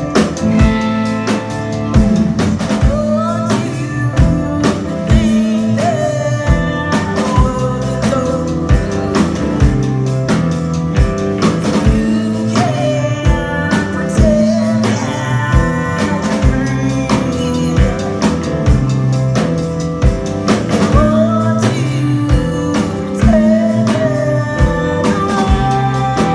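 Live band playing: a woman singing into a microphone over electric guitar, electric bass and a steady drum beat.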